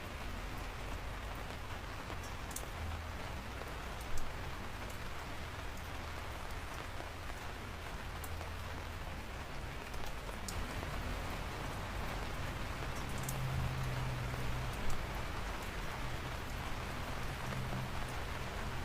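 Steady rain falling, with individual drops ticking sharply on a surface here and there, and a few louder drop hits.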